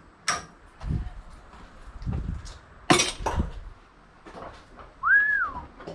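Pieces of scrap brass and copper clinking and knocking as they are handled and dropped, with two sharp metallic clinks, about 0.3 s and 3 s in, standing out. A brief high chirp rises and falls near the end.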